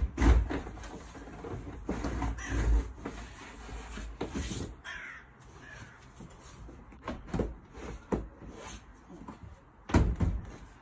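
Irregular knocks and thumps of a Keter plastic shed's panels and frame being handled and fitted, the loudest at the start and near the end. A short harsh sound falling in pitch comes about halfway through.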